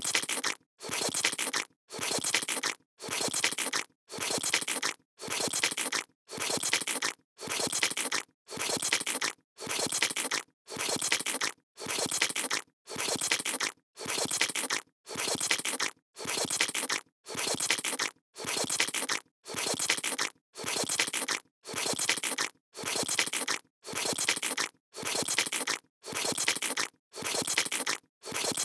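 A looped stock sound effect: the same short noisy sound, about a second long, repeating evenly a little less than once a second with brief silent gaps between repeats.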